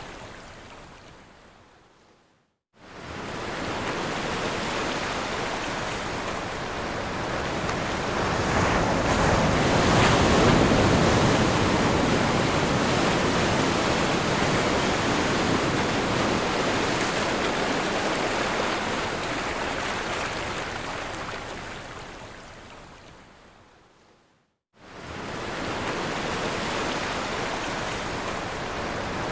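Ocean surf, a steady rushing wash of breaking waves. It fades out to a brief silence about two seconds in, builds back and is loudest about ten seconds in, slowly dies away to silence again near the end, then starts up again.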